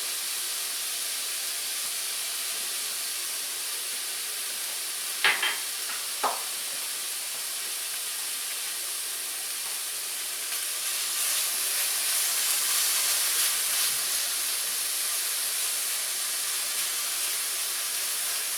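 Shaved ribeye steak frying in a hot pan, a steady sizzling hiss. Three sharp clicks come about five to six seconds in. The sizzle grows louder and crackles for a few seconds past the middle.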